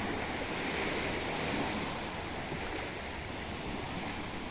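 Small waves washing onto a sandy beach shore: a steady rushing of surf.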